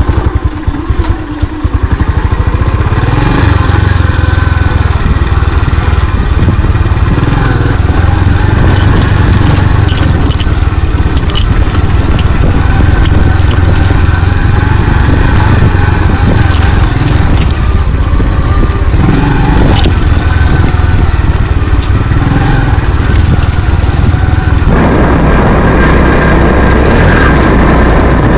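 Motorcycle engine running as the bike is ridden over a rough dirt track, with scattered sharp knocks and rattles around the middle. The sound changes suddenly near the end.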